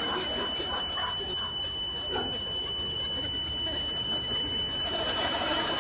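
Smoke alarm sounding one steady, piercing high-pitched tone without a break.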